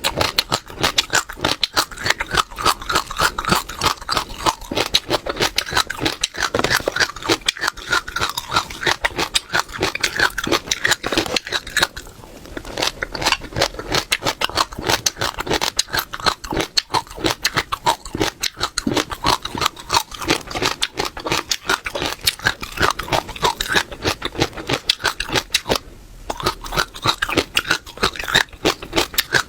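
Close-miked chewing of crunchy seeds: a dense, fast crackle of seeds being bitten and crushed in the mouth, easing briefly twice.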